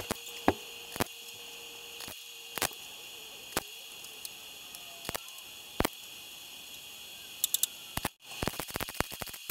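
MIG welder tacking a replacement rocker panel into a car body: single sharp crackling snaps of brief tack welds every half second to a second or so, then about eight seconds in a run of rapid crackling as a longer weld is laid. A steady hiss lies underneath.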